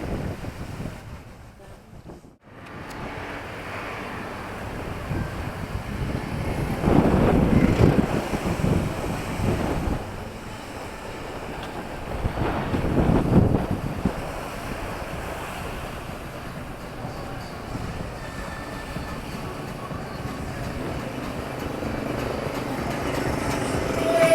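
Street traffic ambience: two vehicles pass close by, one about a third of the way in and another just past the middle, over a steady hum of traffic with some wind on the microphone. The sound briefly drops out about two seconds in.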